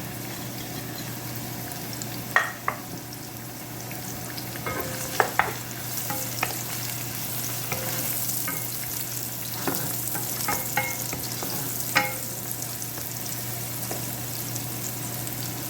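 Chopped garlic and green onion roots frying in hot oil in a pan: a steady sizzle, broken by sharp clinks of a utensil against the pan as they are stirred.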